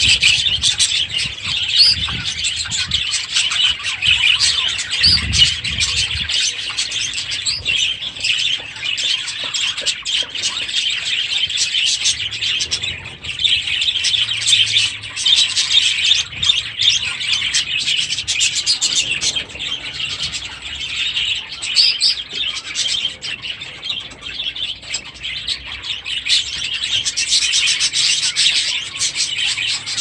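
A flock of budgerigars chattering without a break, a dense mix of many overlapping chirps and short warbling calls.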